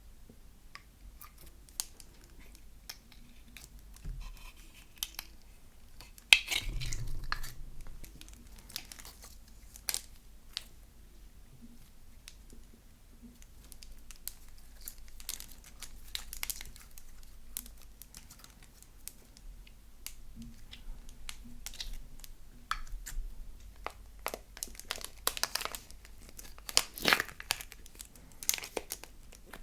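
Slime being squeezed, stretched and mixed by hand, giving irregular crackles, pops and sticky tearing sounds. One loud burst comes about six seconds in, and the crackling gets denser near the end.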